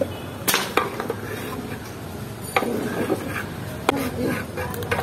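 A long metal stirring rod knocks and scrapes against a large metal cooking pot as meat is stirred, giving several sharp, irregular clanks.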